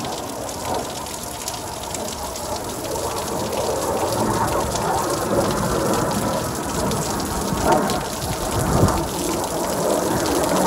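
Heavy rain falling steadily, with a few brief low rumbles.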